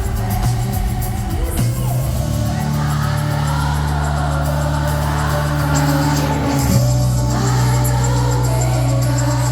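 Live pop music over an arena sound system with singing above a sustained bass line, the bass note shifting to a new chord about seven seconds in.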